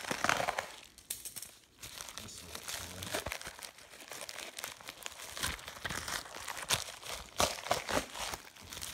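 Clear plastic packaging bag crinkling as it is handled, with many short sharp crackles; loudest right at the start and again near the end.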